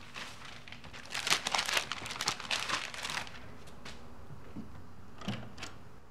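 Paper rustling and crumpling in quick, dense bursts for about two seconds, as papers are handled at a wall of pinned photos and notes. Two light knocks follow near the end.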